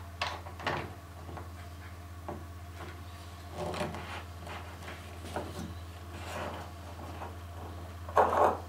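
Handling noise from a Dremel Multi-Vise 2500 with a wooden block in its jaws: small knocks, clicks and rubbing of the vise's plastic and metal parts and the wood as it is gripped and adjusted, over a steady low hum. There is a louder scrape near the end.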